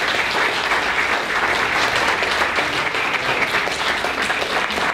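Audience applauding steadily: many hands clapping at once, in a sustained round of applause at the end of a lecture.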